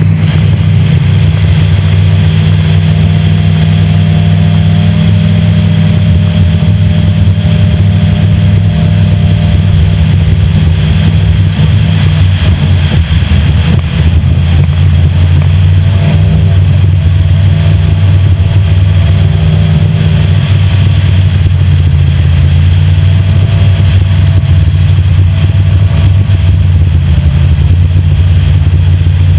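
Tunnel-hull race boat's engine running loud and steady at high revs under way, with a brief unsteady moment about halfway through.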